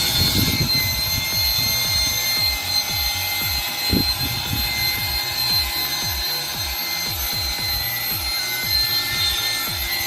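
Electric motor of a drill converted into a well-drilling rig, running steadily under load as it bores. A steady whine sits over an uneven low churning.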